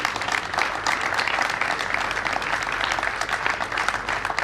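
Applause: a crowd of people clapping steadily, dense and even throughout.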